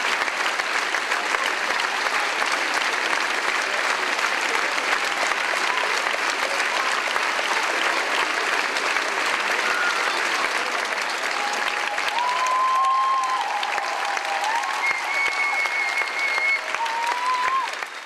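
Theatre audience applauding steadily at a curtain call. Near the end a few short pitched calls rise above the clapping before the applause fades out.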